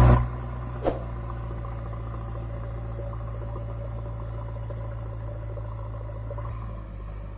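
Diesel engine of a JCB 3DX backhoe loader running steadily at low revs, opening with a loud burst and a single knock about a second in.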